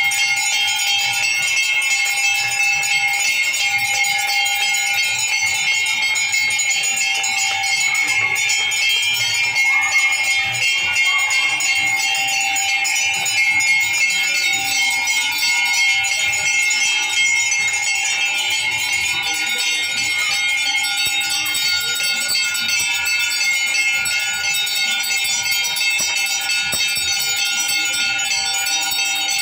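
Brass temple bells rung continuously during the aarti lamp worship: a steady, dense clanging with several ringing tones that never lets up.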